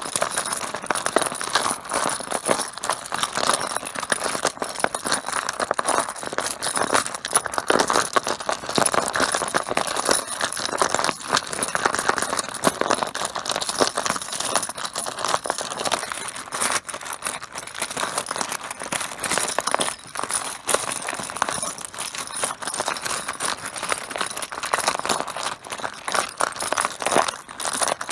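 Mahjong tiles clattering against one another, a dense and continuous stream of small hard clicks.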